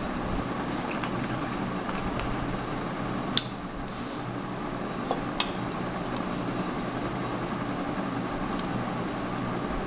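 Steady background hum, with one sharp tap about three and a half seconds in and two lighter clinks around five seconds, as a plastic water bottle is set down and a metal spoon stirs in a glass bowl.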